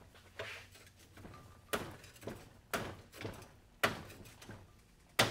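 Sharp metal-on-metal knocks as a tool works at the clip of a steel leaf spring to bend it open: about seven knocks, unevenly spaced, each with a short ring, the loudest near the end.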